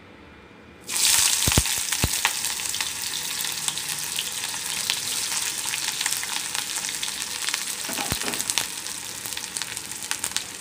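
Sliced onions sizzling in hot oil in a karahi. The sizzle starts suddenly about a second in and carries on steadily with fine crackling, and a couple of knocks come soon after it starts.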